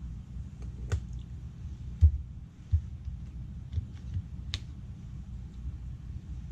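Scattered light clicks and taps of small parts and tools being handled on a laptop during disassembly, with two low thumps about two and three seconds in, over a steady low rumble.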